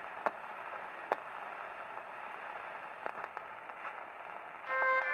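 Steady muffled hiss with scattered clicks and crackles. About four and a half seconds in, background music begins with sustained high tones and gets louder.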